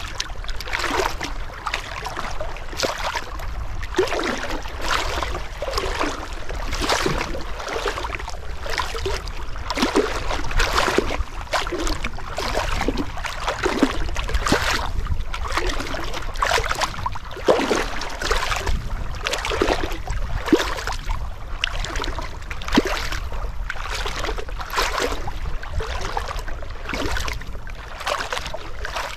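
Water splashing and sloshing in quick, irregular surges, over a low steady rumble.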